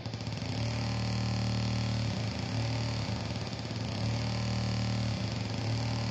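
DIY cigar-box noise synth built on an ISD1820 sampler chip, playing a steady, harsh drone texture with a strong low hum under a noisy haze. It swells up in the first half second out of a quick pulsing loop and then holds steady, dipping briefly twice.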